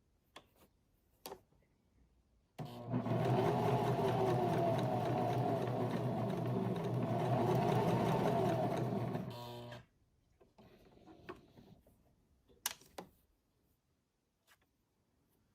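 Electric sewing machine stitching steadily for about seven seconds, then slowing over its last few stitches to a stop. A few light clicks come before and after the run.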